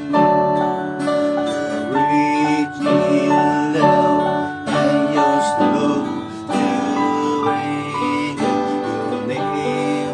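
Instrumental music: a Techno T9690i electronic keyboard playing a melody of held notes that change in steps, over a strummed guitar accompaniment.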